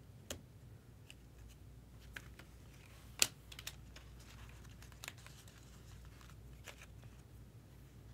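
Trading cards being handled: a few faint scattered clicks and light rustles, the sharpest click about three seconds in, over a low steady room hum.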